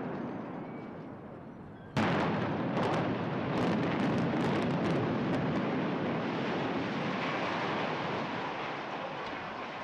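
Demolition charges bringing down a multi-storey building: a sudden loud blast about two seconds in, then a long rumble of collapse with sharp cracks and crashes that slowly dies away.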